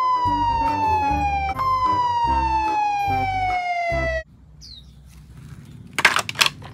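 Police motorcycle siren wailing in a slow falling sweep that resets to its top pitch about a second and a half in, over low rhythmic thumping. It cuts off suddenly about four seconds in. Near the end come a few sharp clatters of plastic toys being handled.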